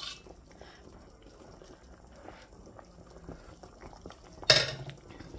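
A pot of vegetable soup simmering softly, a faint steady bubbling. About four and a half seconds in comes one short, loud noise, most likely the serving spoon at the pot as the soup is tasted.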